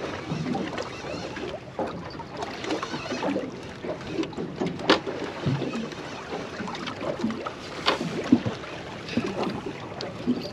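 Choppy water lapping and slapping against a small boat's hull, with scattered sharp knocks and clicks, the clearest about five and eight seconds in.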